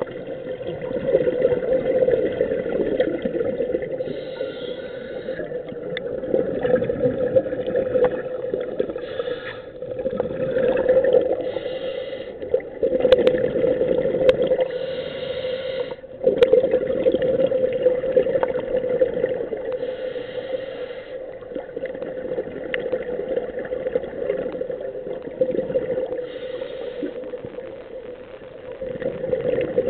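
Underwater sound of scuba regulators: exhaled bubbles rumbling out in surges every few seconds, with short hisses of breathing between them, over a steady low hum.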